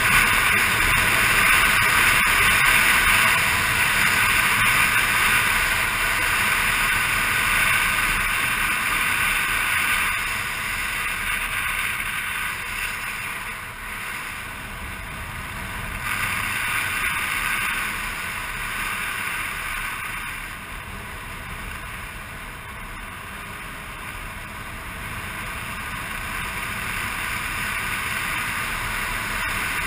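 Scooter on the move: its engine and the wind rushing past the handlebar-mounted camera make a steady noisy rush. It eases off about halfway through and again later, then builds back up as the speed changes.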